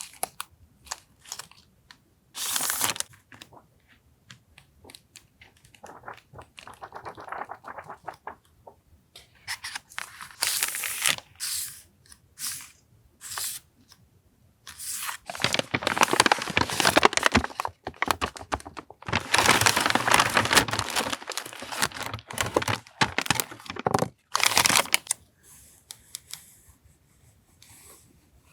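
Paper and plastic stationery packaging being handled, with scattered crinkles and clicks. About halfway through, a paper envelope is torn open with a long stretch of loud tearing and rustling, which dies down a few seconds before the end.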